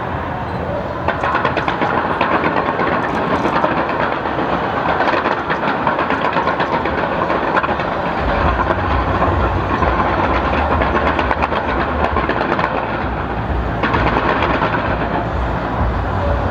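Fireworks display going off continuously: a dense, rapid crackling and popping, with a low rumble of bursts joining about halfway through.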